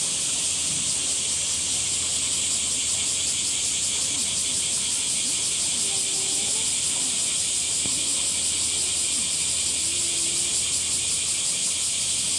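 Chorus of cicadas: a steady, high-pitched buzzing hiss.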